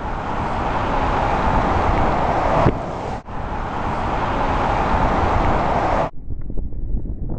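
Steady rushing of wind on the microphone and road noise as a small bike coasts fast downhill. It breaks off briefly about three seconds in, and turns duller and a little quieter about six seconds in.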